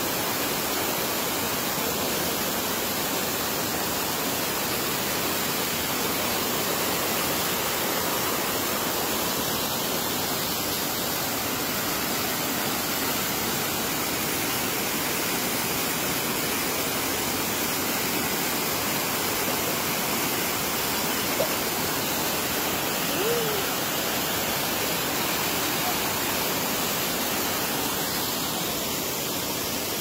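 Waterfall pouring over a rock ledge, heard right at its lip: a steady, unbroken rush of falling water.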